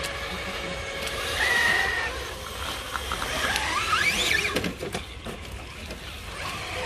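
Electric motors and gear drivetrains of radio-controlled scale crawler trucks whining as they crawl up a muddy slope. A high whine comes about a second and a half in, then a whine that rises and falls in pitch as the throttle is worked, followed by a few clicks.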